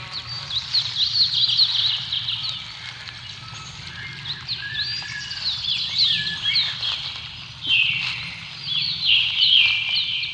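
Several small birds chirping and singing together, a dense run of quick, high, falling notes that overlap without pause, over a faint steady low rumble.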